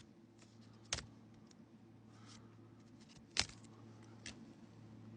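Pokémon trading cards and their booster-pack wrapper being handled: faint rustling with a few sharp clicks, the loudest about a second in and about three and a half seconds in.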